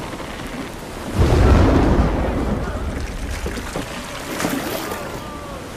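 Storm at sea: a sudden deep rumbling crash about a second in, fading over the next couple of seconds, over a steady wash of wind and rough water.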